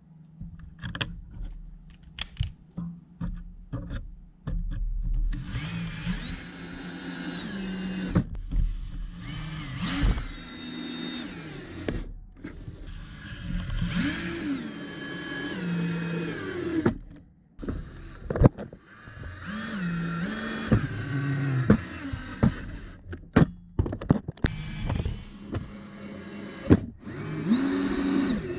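Cordless drill-driver driving screws into an RC car's plastic gearbox holders and chassis: the motor runs in repeated bursts, its pitch rising and falling as it spins up and slows when the screw seats. A few light clicks of parts being handled come first, before the driver starts.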